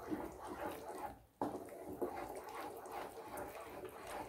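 Wooden spatula stirring a wet mixture of milk, ghee and milk powder in a ceramic nonstick pan: faint, irregular wet stirring strokes, with a brief gap just over a second in. The mixture is being cooked down on low heat into khoya.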